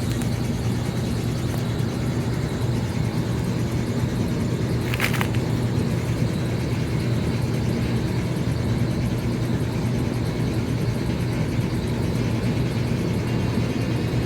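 York 3-ton rooftop air conditioner running steadily, its compressor and condenser fan giving a constant low hum with a whoosh of air. A single brief sharp click or squeak sounds about five seconds in.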